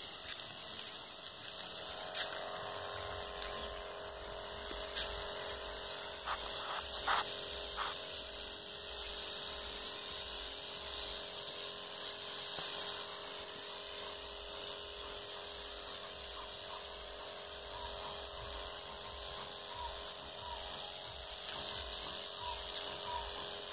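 Electric pump of a battery-powered knapsack sprayer humming steadily as it sprays a fine mist, with a low throb setting in about two seconds in. A few sharp clicks come between about two and seven seconds in.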